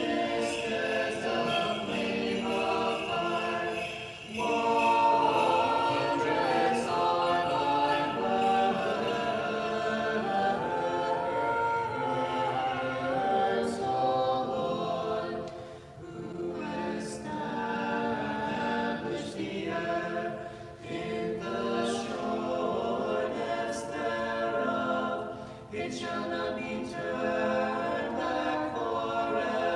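Orthodox church choir singing a cappella, several voices together in harmony, in long phrases with brief pauses between them.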